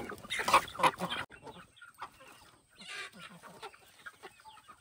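Chickens clucking in a coop: a busy stretch of loud calls for about the first second, then quieter, scattered clucks, with one sharper call about three seconds in.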